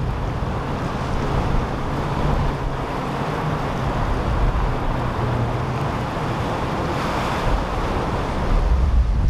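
A powerboat's engines rumbling low under the rush of water and waves, with wind buffeting the microphone. The rushing noise swells about seven seconds in, and the engine rumble grows louder near the end.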